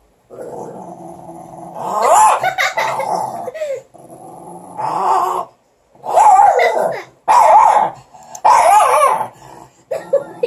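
Small dogs growling and barking in play as they tussle over a stick, in rough bursts with short pauses between them.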